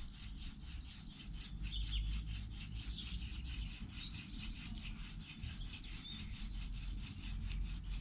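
Elder spindle being spun back and forth between the palms in a hand drill, rubbing against an ivy hearth board in quick, even strokes while the set is warmed up to build friction dust.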